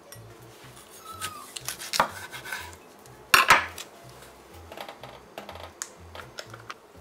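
Kitchen dishes and utensils clinking and knocking while food is prepared: scattered light clicks, a sharper knock about two seconds in and a loud double clack about three and a half seconds in.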